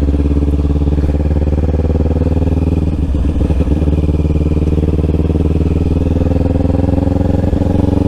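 Motorcycle engine running steadily while riding along. Its pitch dips briefly about three seconds in, then rises gently.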